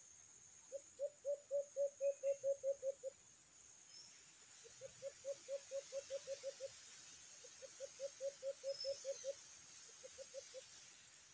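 A dove cooing in four runs of quick, low hoots at about five notes a second: three runs of ten to twelve notes, then a short run of four near the end. A faint, steady high insect drone sits behind.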